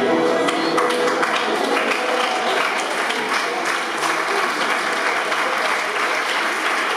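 A folk band's last waltz note dies away in the first moment, then the audience applauds steadily.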